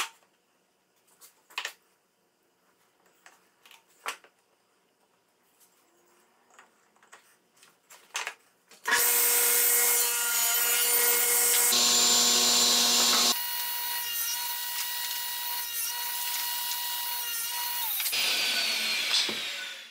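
Table saw with a crosscut sled cutting laminated plywood blocks. It opens with a few light taps and clicks as the wood is handled. About nine seconds in, the saw comes in loud and runs with a steady whine and hiss. Near the end it is switched off and winds down, its pitch falling.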